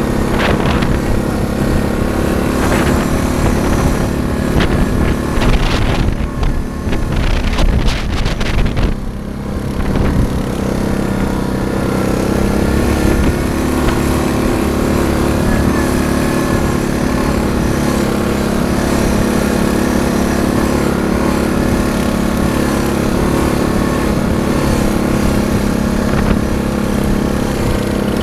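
ATV engine running steadily while riding along a snowy trail, with uneven, rougher noise in the first ten seconds before it evens out.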